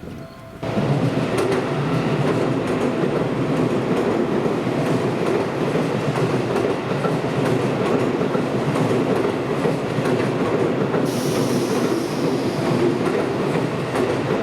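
Seibu Railway train running past on the track, a loud steady rumble of wheels and cars that starts suddenly under a second in; from about eleven seconds in a high hiss joins it.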